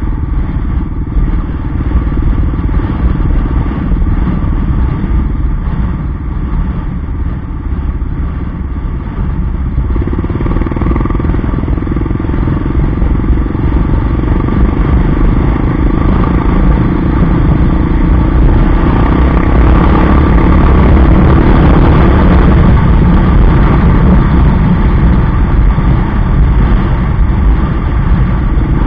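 Yamaha XT 600's single-cylinder four-stroke engine running while the bike rides a dirt track. The engine grows louder about ten seconds in as the bike picks up speed.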